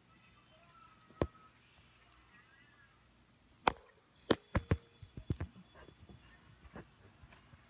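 A cat teaser toy jingling and clicking as it is shaken. There is a short run of quick metallic clinks in the first second, then a louder burst of clinks and sharp knocks from about three and a half to five and a half seconds in.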